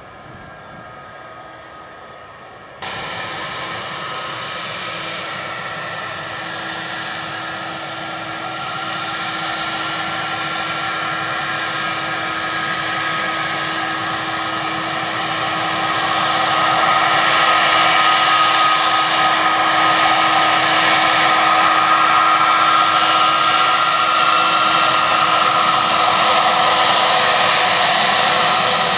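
Turbofan engines of a twin-engine Airbus A330 jet taxiing toward the listener, a steady engine whine with several held tones over a rushing noise. It jumps suddenly louder about three seconds in, then keeps growing louder until about halfway through and holds steady.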